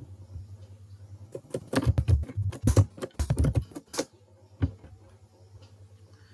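Typing on a computer keyboard: a quick run of keystrokes starts about a second and a half in and lasts a couple of seconds, followed by one more click, over a faint low hum.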